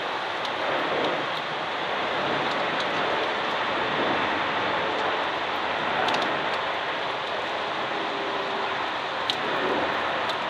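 Jet engines of a Boeing 777-300ER on approach passing overhead, heard from the ground as a steady rushing noise, with a couple of faint clicks.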